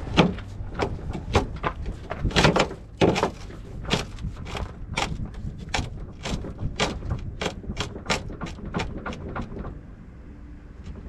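Hammering: about twenty sharp knocks in a row, coming faster toward the end and stopping about a second before the end.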